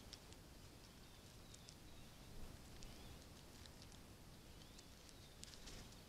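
Near silence outdoors, broken by scattered faint ticks and a few faint short bird chirps.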